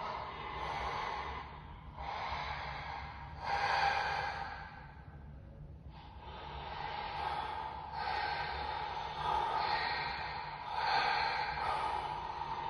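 Installation soundtrack built from recordings of human breathing: a run of breathy swells, each one to two seconds long, with a lull about five to six seconds in, over a faint low hum.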